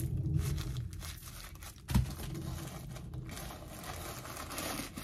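White stuffing paper crinkling and rustling as it is pulled out of a backpack's pocket, with a single sharp thump about two seconds in.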